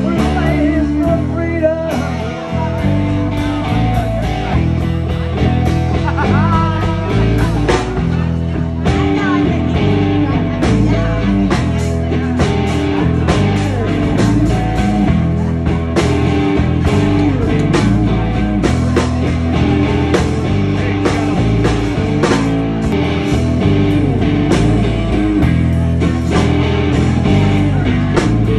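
Live blues-rock band playing: electric guitar over drums and bass guitar, with a steady beat and bending guitar notes, in an instrumental stretch.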